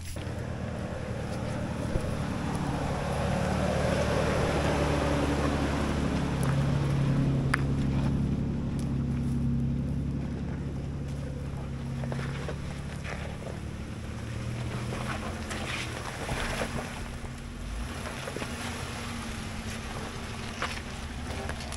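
A 4x4 truck's engine running as it drives up a muddy forest road. The engine pulls harder and louder a few seconds in, then eases off, with tyre and road noise and occasional knocks from the rough trail.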